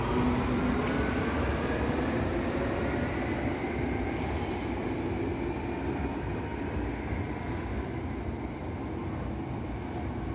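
Berlin U-Bahn type H train pulling out of an underground station and accelerating away into the tunnel. Its electric traction drive gives a rising whine over the steady rumble of the wheels, and the sound slowly fades as the train recedes.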